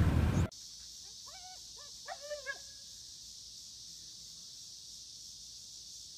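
A loud rush of car wind and road noise cuts off about half a second in. A husky then gives a few short, high, pitched calls between about one and two and a half seconds in.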